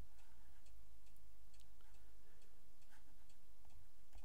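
Faint ticks, roughly two a second and not quite even, over a low steady room hum.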